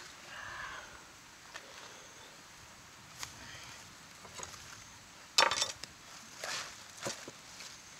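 Scattered knocks and rustles of food and produce being handled and set down on a wooden bench and cutting board, with a louder rattling clatter about five and a half seconds in.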